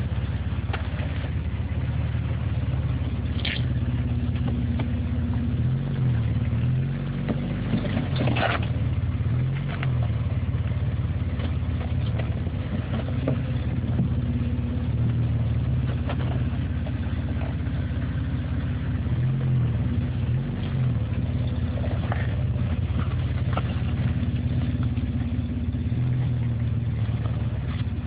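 Jeep Wrangler engine running at low revs while crawling over rocks, its pitch rising and falling slightly every few seconds with throttle changes. A few brief sharp sounds break in, around 3 and 8 seconds in.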